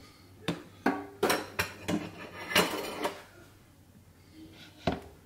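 Clatter of kitchen dishes: a bowl and utensils knocking together, a quick run of sharp knocks in the first three seconds and a single knock near the end.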